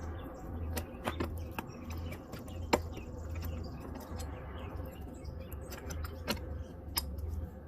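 Scattered sharp metal clicks and knocks from hand work on a push mower: a handful of single strikes, the loudest about three seconds in, over a low pulsing rumble.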